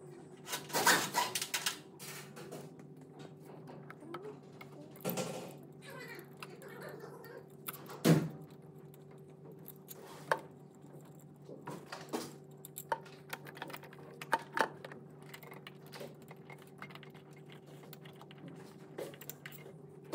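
Scattered clicks, taps and knocks of an air intake pipe and its silicone couplers being handled and fitted in an engine bay, with one sharper knock about eight seconds in. A steady low hum runs underneath.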